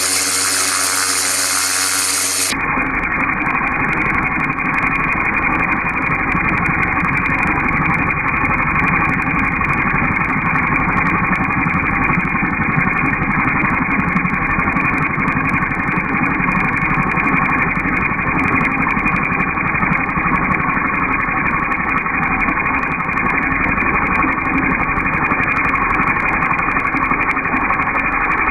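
Pressure washer running steadily with its spray blasting, heard as a continuous, dull, engine-like drone with no high end. For the first couple of seconds a brighter sound with a steady pitch is heard instead.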